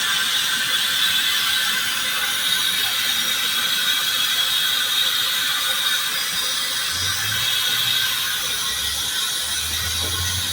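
Steam vent from New York City's district steam system, venting with a loud, steady hiss. A faint low hum joins about seven seconds in and again near the end.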